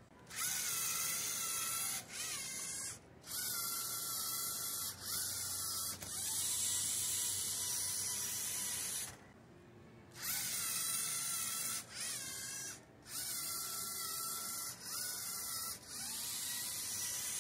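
LEGO Mindstorms robot's motors and gears whirring as the robot drives through a programmed run, starting and stopping every one to three seconds, with a whine that rises and falls in pitch as the motors speed up and slow down.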